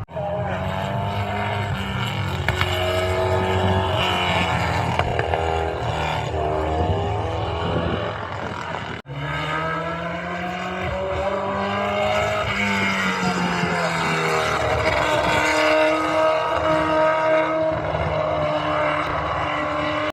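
Classic racing engine running at high revs under hard acceleration, its pitch climbing and falling back repeatedly as it goes through the gears. The sound breaks off abruptly about nine seconds in, and a second run of the same kind of engine follows.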